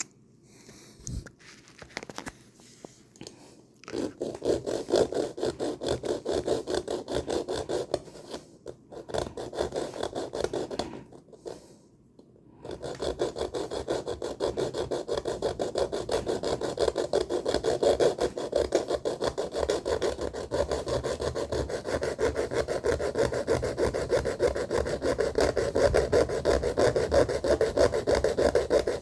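Hand saw blade cutting through a bike rack's over-long support arm at its notches with rapid back-and-forth strokes: a few seconds of sawing about four seconds in, a pause, then steady sawing from a little before halfway on.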